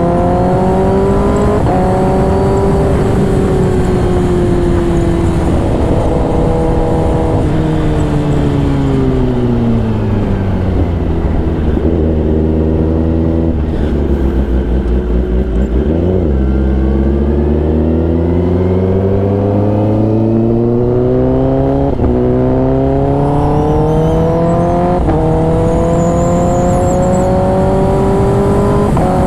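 Kawasaki ZX-10R inline-four through a loud aftermarket exhaust, heard from the rider's seat: it accelerates through the gears with quick, clipped quickshifter upshifts, the revs then fall away as the bike slows to a low rumble for several seconds, and after a sharp throttle blip about halfway it pulls up through two more gear changes.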